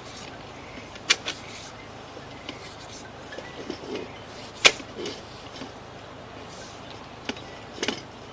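A few sharp clicks and knocks over a steady hiss as a sewer inspection camera's push cable is pulled back through the pipe. The loudest knock comes about halfway through, with others about a second in and near the end.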